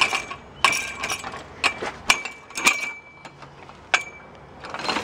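Padlocked chain-link gate being rattled and pushed: its steel latch and padlock knock against the pipe post in about half a dozen sharp metallic clinks, each with a short ring.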